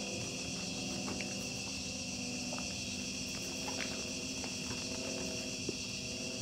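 Steady high-pitched chirring of a cricket chorus, with a low sustained music drone held underneath and a few faint clicks.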